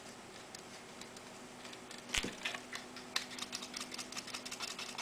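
Faint small clicks and ticks of metal and plastic being handled: hex nuts being unscrewed from the toggle switches and set down on the table to free the enclosure lid, with one sharper click about two seconds in.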